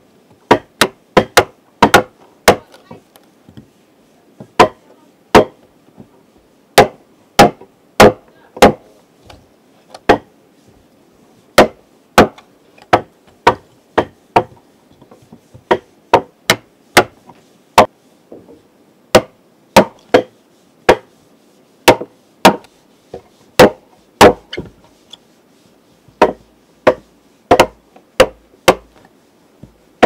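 Sharp, irregular blows of a hand tool chopping into wood, about one and a half a second and often in quick pairs.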